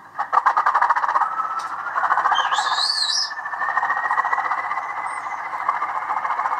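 Recorded diesel-engine sound from a Bachmann Class 20 model locomotive's sound decoder, played through its small on-board speaker. The engine beats quickly and evenly under a whine that rises slowly in pitch, with a brief higher hiss about two and a half seconds in. It sounds thin and tinny, with little bass.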